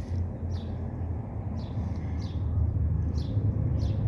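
A small bird chirping over and over, short high notes about twice a second, over a steady low rumble.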